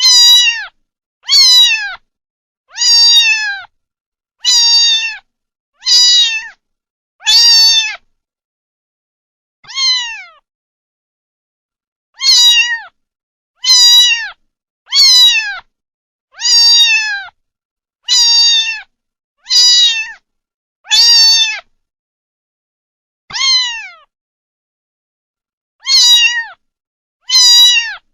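Kitten meowing over and over: short, high meows, each falling in pitch, about one every second and a half, with a longer pause about ten seconds in and again a few seconds before the end.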